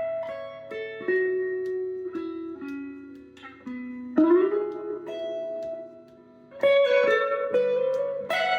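Instrumental guitar break: single plucked notes in a slow melodic line, with one note bent or slid upward about four seconds in.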